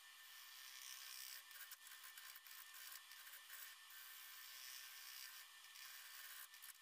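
Faint scraping hiss of apple wood being cut on a lathe, a bowl gouge taking shavings in uneven strokes that swell and fade.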